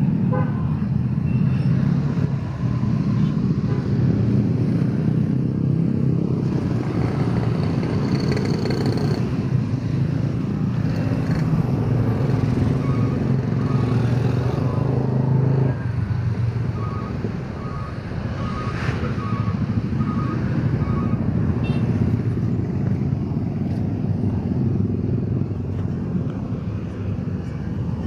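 Motorcycle engine running steadily while riding, with road and wind noise; the engine sound drops in level a little past halfway through.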